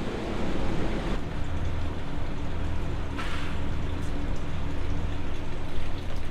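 A steady low mechanical hum, with brief rustling, handling noises in the first second and again about three seconds in.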